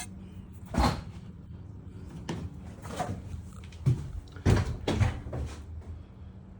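A string of irregular knocks and clunks, like objects being handled or set down, over a steady low hum.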